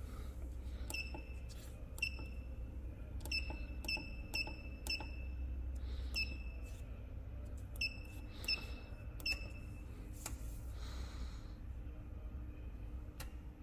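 Electronic keypad on a cooking vessel's digital controller beeping as its buttons are pressed: about a dozen short, high beeps at irregular intervals, with the presses paging through the controller's settings menu. A steady low hum runs underneath.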